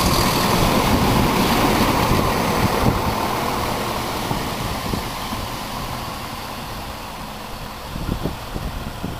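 Class 170 Turbostar diesel multiple unit running in close past and slowing for its station stop: the rumble of its diesel engines and wheels on the rails is loudest in the first few seconds and then fades. A few low knocks near the end.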